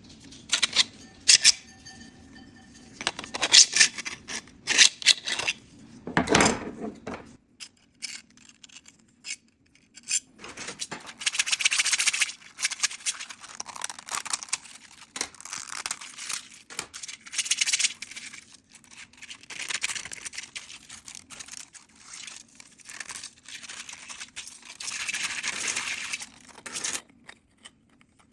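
3D-printed plastic fidget toys being handled. Sharp clicks and snaps come in the first several seconds, then longer stretches of plastic parts rattling, scraping and spinning against each other.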